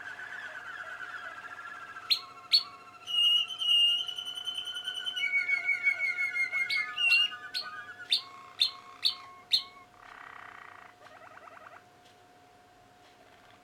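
Young Malinois waterslager canaries singing: long held whistled notes and trills, broken by sharp clipped notes, with a quick run of about five sharp notes around the eighth second before the song falls quieter.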